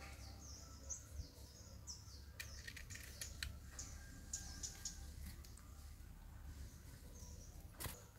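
Faint birds chirping, a run of short high calls repeated through the first five seconds and again briefly near the end, over a steady low rumble. A few soft clicks and one sharp click near the end.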